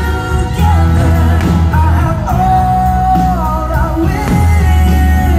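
Loud fireworks-show soundtrack: a song with singing over a heavy bass, one sung note held for about a second in the middle.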